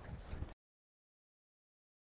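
Faint outdoor background noise for about half a second, then the sound cuts out to complete silence.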